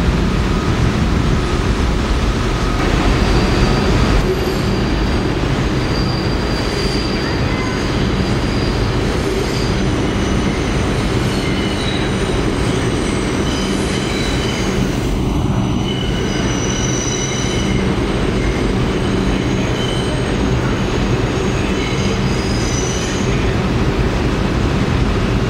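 Subway train running through an underground station, with a steady rumble of wheels on the rails and faint high squeals coming and going from the wheels.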